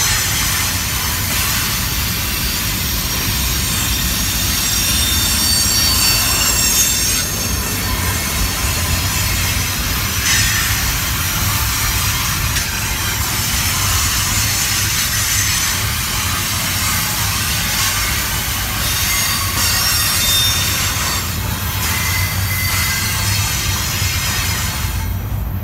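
Double-stack intermodal well cars of a slow-moving CSX freight train rolling past: a steady rumble of wheels on rail, with high-pitched wheel squeal coming and going.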